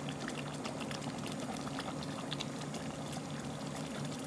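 Chicken korma simmering in an open pot, its sauce bubbling with many small pops, over a steady low hum.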